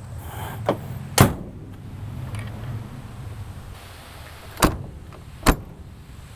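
Car doors being shut: four slams, two close together near the start, the second the loudest, and two more a little under a second apart near the end.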